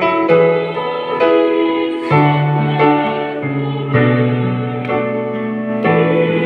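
Choir of women's voices singing a song in sustained chords, accompanied by an electronic keyboard, the harmony shifting about every second.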